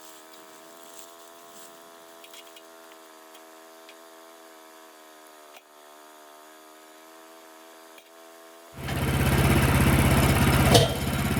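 Small gasoline engine, likely the portable sawmill's, running steadily, faint and thin at first; about nine seconds in it becomes suddenly much louder and fuller, with a deep rumble.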